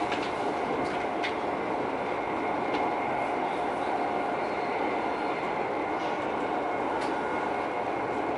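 Running noise of a CRH high-speed train at speed, heard inside the passenger cabin: a steady rush with a faint constant hum and a few light ticks.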